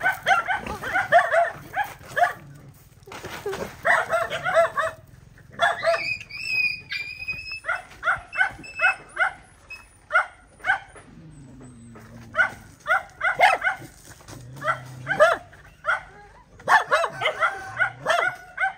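Dogs barking and yipping in runs of quick short barks, with a high drawn-out whine about six seconds in.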